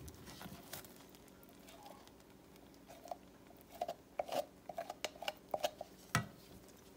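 Wooden spoon scraping thick peanut butter out of a plastic measuring cup into a pan of hot chocolate-sugar mixture. Faint, irregular sticky clicks and squelches in the middle stretch, then one sharper knock about six seconds in.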